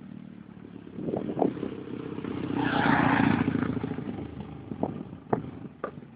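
A motor vehicle passing by: engine and tyre noise swell to a peak about three seconds in, then fade. A few short sharp knocks follow near the end.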